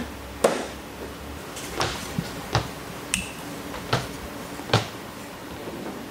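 About seven sharp, irregularly spaced taps and knocks from a squeegee worked across wet window film on the inside of a car windshield, pushing out the air and water. A faint steady hum runs underneath.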